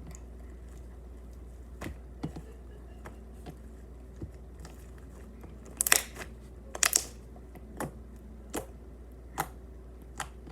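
Slime being handled, giving scattered sharp clicks and crackling pops, with two louder crackly bursts a little past the middle.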